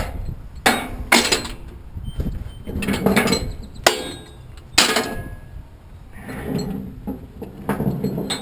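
Bunches of steel tie-down chain with hooks and binders clanking and rattling as they are dropped and shifted into a steel chain compartment, about six separate jangling clanks with lighter rattling between.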